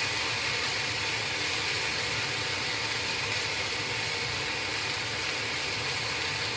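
Steady sizzling and hiss of chicken breasts cooking on an electric indoor grill, holding at an even level.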